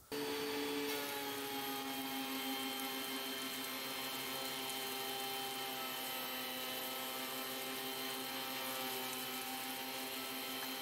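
DeWalt DW734 benchtop thickness planer running with a steady high motor whine while it feeds an ash board through its cutterhead. The pitch sags slightly midway as the cut takes load.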